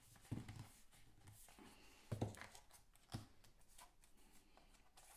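Faint handling noise: a notebook and its paper sleeve being turned over and fingered, soft paper rustles with a few light knocks, the clearest three about a second apart.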